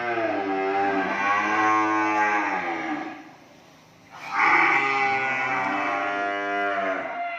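Cattle mooing. One long moo fades out about three seconds in, and after a second's pause another long moo starts.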